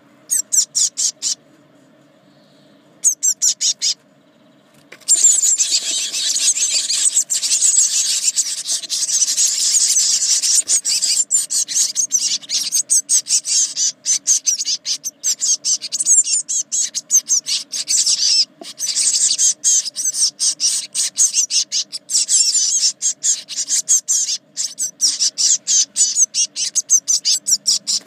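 Eurasian blue tit nestlings, 18 days old, calling from inside the nest box in a rapid, high-pitched begging chorus. Two short bursts in the first few seconds, then continuous calling from about five seconds in.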